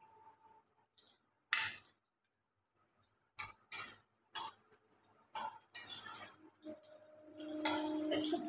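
Metal spatula scraping and knocking against a wok as sliced onions are stirred in hot oil, with a light sizzle. Near the end comes a louder metallic clank that rings briefly.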